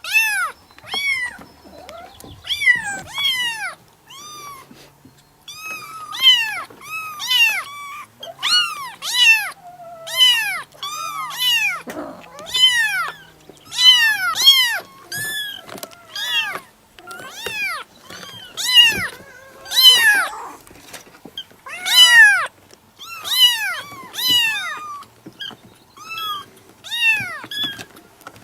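Kitten meowing over and over: short, high-pitched calls about one a second, each rising and then falling in pitch.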